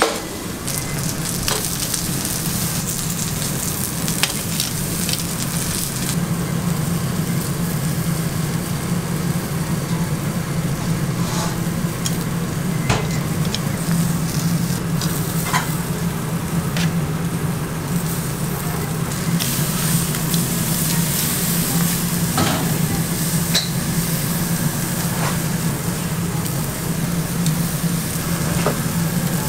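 Meat, prawns and vegetables sizzling on a charcoal grill grate, with scattered sharp crackles and clicks. A steady low hum runs underneath.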